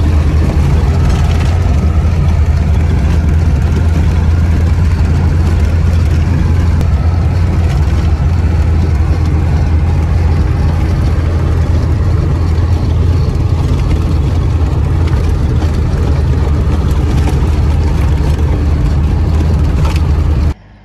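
Cabin noise of an old Soviet-era car driving on a gravel road: a steady, loud engine drone with tyre and road rumble. It cuts off suddenly near the end.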